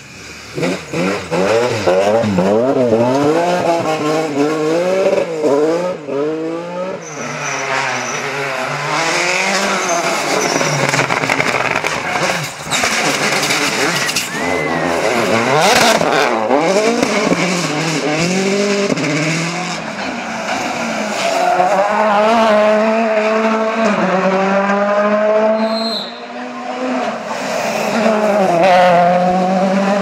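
Rally cars at full speed on a special stage, one after another. The engines rev hard, their pitch jumping up and down quickly at first as the drivers blip and lift for corners. Later the pitch climbs in long sweeps, falling back at each gear change.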